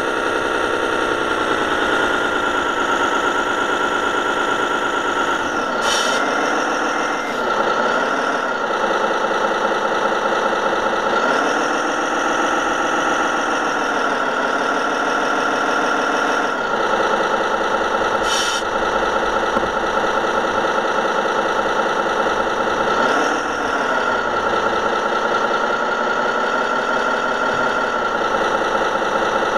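Simulated diesel truck engine sound from a radio-controlled model truck's sound module, running steadily and dipping then rising in pitch several times as the truck slows and pulls away again. A few short hisses break in, about six seconds in, near the middle and at the end.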